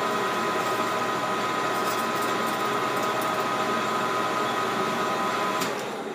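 Small metal lathe running, turning an aftermarket Stihl MS 660 chainsaw cylinder in its four-jaw chuck: a steady machine drone with a whine in it, which dies away near the end as the lathe is stopped.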